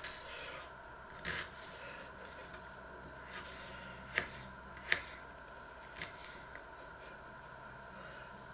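Small kitchen knife dicing onion on a wooden cutting board: a handful of scattered sharp taps of the blade against the board, over a faint steady hum.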